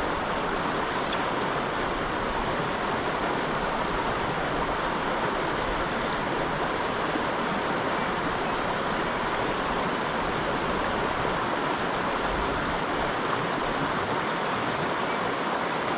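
Small creek's water running, a steady even wash with no breaks.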